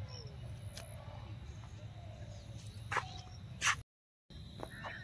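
Birds chirping over a steady low rumble, with a sharp knock about three seconds in and a louder one just before the sound cuts out completely for about half a second.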